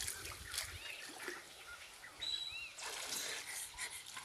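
Quiet river water lapping and trickling, with a few short rising-and-falling bird chirps, and a brief high steady whistle-like note about two seconds in.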